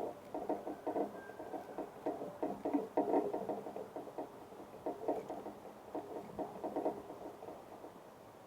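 Rapid, irregular tapping and pattering of small birds pecking at seed on the bird feeder close to the microphone, with a short pause in the middle before it fades out near the end.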